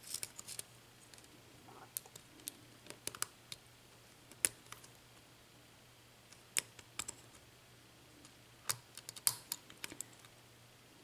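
Lock pick clicking and scraping against the pin stacks of a Schlage mortise cylinder during single-pin picking, under tension: small irregular metallic clicks in scattered clusters.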